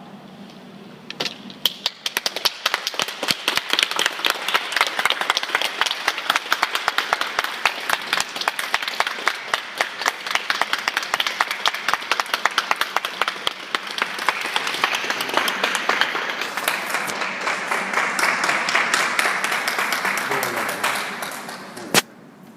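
A small crowd clapping and applauding, individual claps standing out, starting about a second in and dying away near the end, followed by one sharp click.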